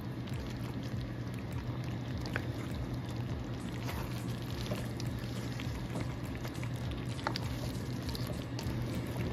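Thick creamy chicken stew bubbling in a pan as a spoon stirs it, with a few sharp clicks of the spoon against the pan and a steady low hum underneath.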